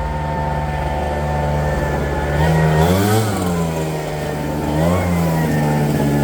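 Small petrol engine running steadily, revved up briefly twice and dropping back to a steady speed.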